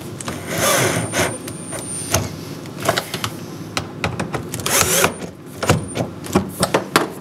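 Cordless drill-driver running in short spurts as it tightens the bolts on a kayak's thigh-pad plate, with sharp clicks and knocks of the bit and hardware in between.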